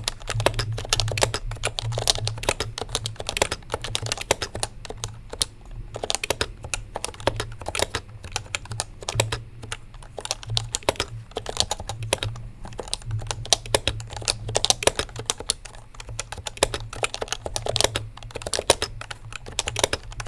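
Continuous typing on a Happy Hacking Keyboard with Topre electro-capacitive switches: a dense, irregular run of key clicks, many a second, with no long pause.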